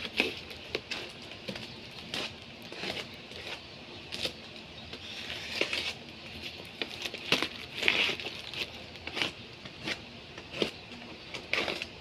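Packaging being crinkled and torn open by hand, an irregular run of crackling and rustling strokes.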